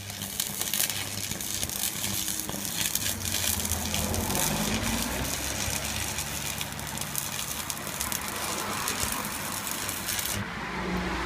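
Panasonic YK-250AD arc welder's arc burning: a steady crackling sizzle over a low hum, which drops away shortly before the end as the arc is broken.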